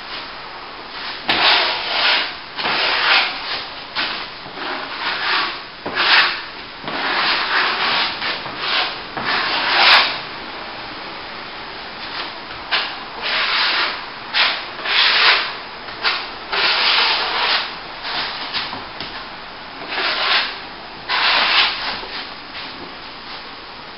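Steel plastering trowel sliding and scraping over wet top-coat plaster on a plasterboard ceiling joint, in a long series of irregular strokes, each lasting under a second.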